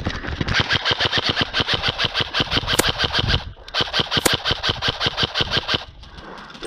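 Airsoft gun firing on full auto in two long bursts of rapid, even clicks, the second starting after a brief pause about three and a half seconds in.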